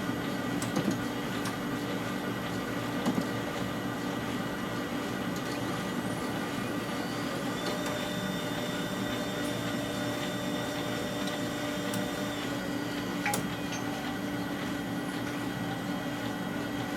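Samsung CLP-510 colour laser printer running with a steady mechanical hum of motors and fans and a few light clicks of its paper-handling mechanism.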